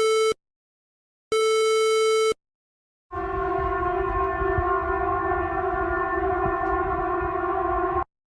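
Emergency alert sequence: the end of one electronic alert tone, then a second steady tone about a second long. After that an outdoor civil defence siren sounds a steady, unwavering chord of several pitches for about five seconds over a rumbling background, then cuts off abruptly.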